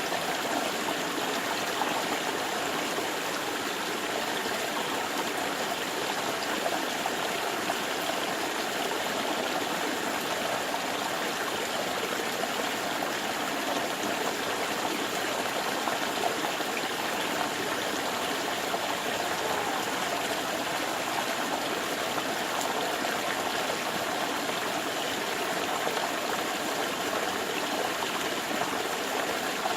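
Water flowing steadily in a stream, a continuous even rush with no breaks.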